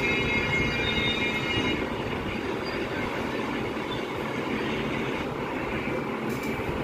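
Steady, rough rumbling street noise from a phone recording made outdoors on a road at night, with a thin high tone over it for about the first two seconds.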